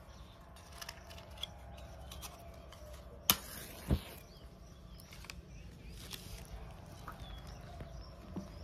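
A match struck with a sharp scratch and brief flaring hiss, then a low whump as the petrol poured on the coin catches fire. Faint birds chirp in the background.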